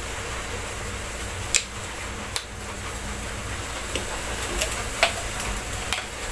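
Lit stove burner hissing steadily under an empty aluminium wok, with several sharp ticks scattered through, the loudest about one and a half and two and a half seconds in.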